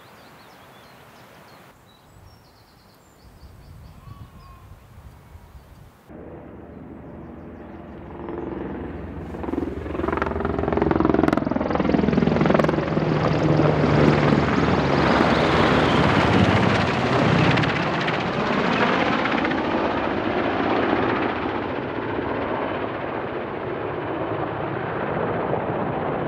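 Helicopter flying low overhead: the rotor beat builds from faint to loud over several seconds, peaks as it passes with an engine whine that drops in pitch, then slowly fades as it flies off.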